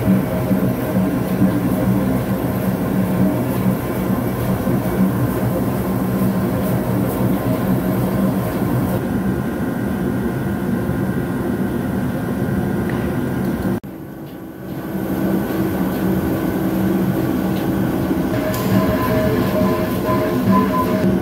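CNC vertical lathe turning a large SS450 steel separator drum, the insert cutting the rim: a steady, loud machine hum with a few held tones. The level dips briefly about 14 seconds in, then returns.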